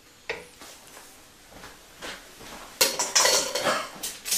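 Kitchen utensils and dishes clinking against each other: a faint click early, then a quick run of sharp clinks and knocks about three seconds in.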